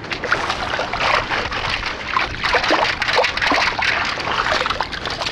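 Perforated stainless-steel sand scoop being worked in shallow seawater over wet sand: irregular sloshing and splashing, with water trickling out through the scoop's holes.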